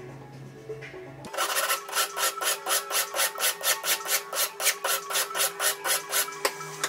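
Needle file rasping back and forth across the edge of a small sterling silver pendant, about four quick, even strokes a second, starting a little over a second in and stopping near the end. The pendant's sides are being filed to match the width of the square stones to be channel-set.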